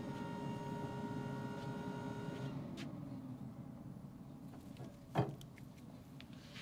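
Pellet grill's motor humming with a steady whine over a low rumble; the whine stops about two and a half seconds in. A single knock about five seconds in.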